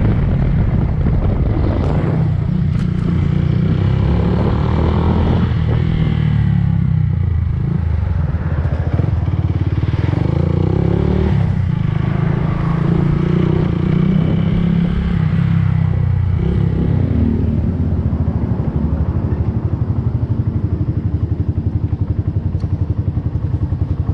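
Yamaha Fazer 150 single-cylinder four-stroke engine running, its note shifting up and down in the first part, then settling into a steady idle with an even pulse.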